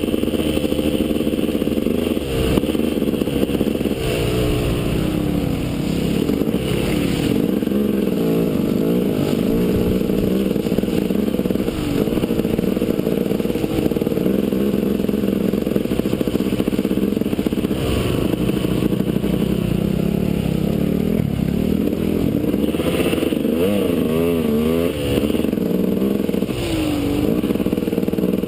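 KTM enduro dirt bike engine running under way, its pitch rising and falling over and over as the throttle is opened and eased.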